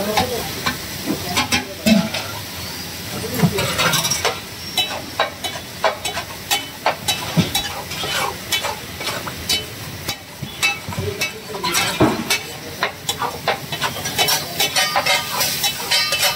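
Pav bhaji sizzling in oil on a large flat tawa while a metal utensil stirs and mashes it, scraping and clacking against the pan in quick, irregular strokes.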